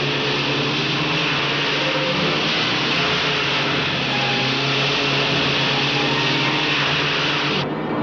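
Outboard motor running flat out on a small speeding boat, with the rush of the hull and spray through the water. It cuts off abruptly near the end, leaving music.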